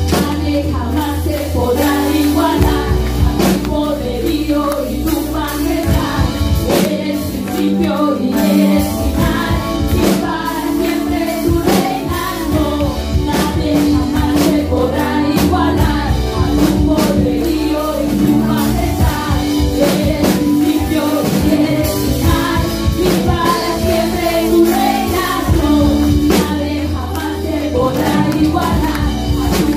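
Live Christian worship music: women's voices singing through microphones over an electronic keyboard, with steady percussion keeping the beat.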